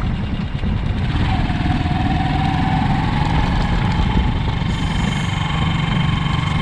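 A vehicle engine running steadily, a constant low rumble.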